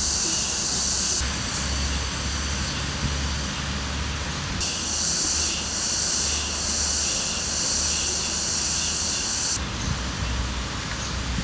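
Steady outdoor background noise: a low rumble under a high hiss that cuts off about a second in, comes back around five seconds in and stops again near ten seconds.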